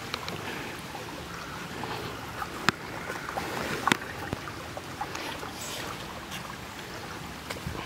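Shallow creek water trickling over stones, a steady wash, with a sharp click about two and a half seconds in and another about a second later.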